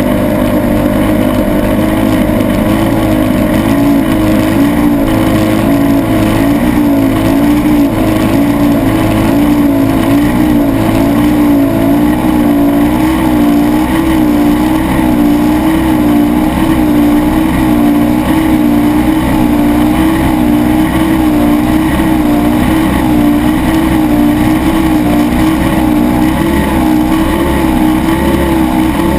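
Mercury OptiMax 300XS V6 two-stroke direct-injection outboard running flat out, driving a sport catamaran at high speed. It is a loud, steady engine note whose pitch wavers slightly up and down more than once a second.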